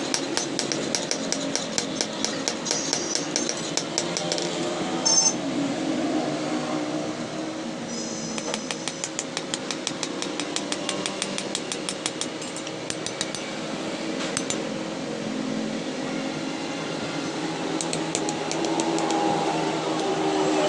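Rapid, light hammer strikes on the steel of a sickle blade at a forge, about six a second, coming in runs with short pauses, and one heavier blow about five seconds in. A steady mechanical hum runs underneath.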